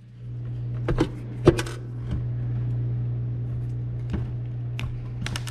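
Hands handling and stripping the wires of a power cable: a few scattered sharp clicks, the loudest about a second and a half in, over a steady low hum that comes in at the start.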